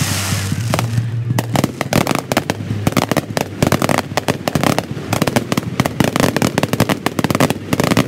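Aerial fireworks shells bursting in a rapid, unbroken run of sharp bangs, several a second, played back at double speed.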